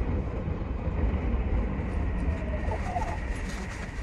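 Odakyu 3000 series electric train running slowly along the platform, heard from inside the driver's cab as a low rumble that slowly fades as it nears its stop at the end of the line. A faint steady high tone comes in about halfway.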